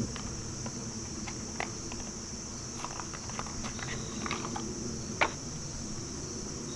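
Wrapped bars of soap being handled and pushed into a dress sock: scattered light clicks and paper-and-fabric rustles, with one sharper knock about five seconds in. Steady high chirring of insects runs underneath.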